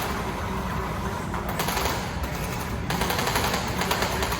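Rapid automatic fire from the game's magazine-fed guns: a fast, even rattle of shots in two long strings, with a short break in the middle.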